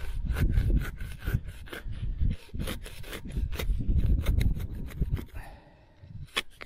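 Excalibur serrated steel hand digger sawing and stabbing through grass sod and soil to cut a plug: rapid rasping strokes with dull thumps, easing off about five seconds in.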